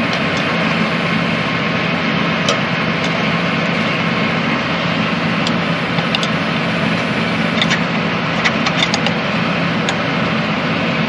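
Tractor engine idling steadily, with a few light clicks near the middle and toward the end.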